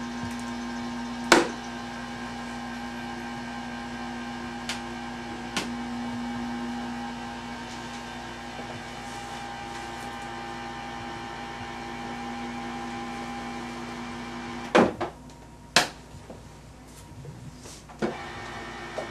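3M ESPE Pentamix electric mixing unit running with a steady motor hum as it mixes and dispenses polyether impression material. It stops about three-quarters of the way through, with a few sharp clicks around the stop and one early on.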